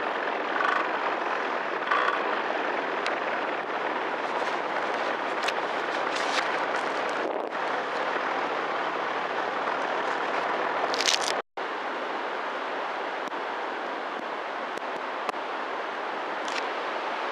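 Steady rushing wind noise on the microphone of a paramotor in flight, with a few crackles. About eleven seconds in there is a short sharp hiss, then the sound drops out for a moment.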